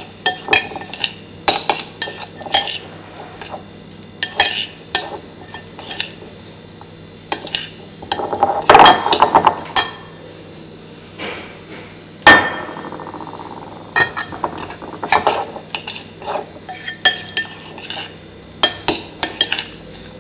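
Metal spoon stirring and scraping damp breadcrumbs in a ceramic bowl, with repeated clinks against the bowl. A harder tap about twelve seconds in leaves the bowl ringing briefly.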